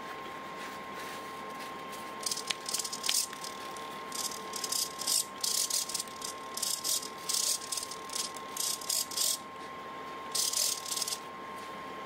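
Cheap radio-control hobby servo motor whirring in a series of short, stop-start bursts from about two seconds in, as it turns the rotor of a vintage dual-gang air-variable capacitor.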